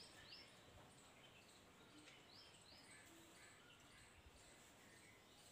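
Near silence: room tone with a few faint, short high chirps now and then.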